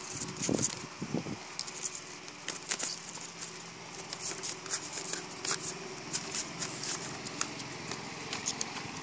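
Paper crackling and rustling in many quick irregular ticks as a kitten walks across a large sheet of drawing paper, with two low thumps about half a second and a second in, over a faint steady hum.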